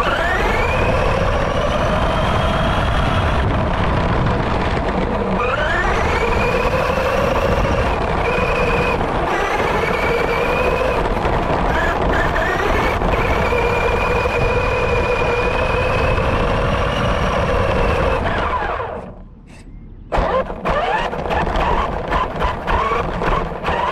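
An FTX Carnage RC monster truck's electric motor and drivetrain whine, rising steeply in pitch each time it accelerates and holding high, over the rushing of wind and tyres across grass. About 19 s in the motor drops out, and irregular knocks and rattles of the chassis bouncing over the ground follow.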